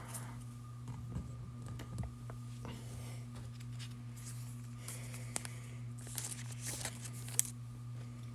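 Faint handling of trading cards in plastic holders: light clicks as they are set onto display easels, then soft rustling, over a steady low hum.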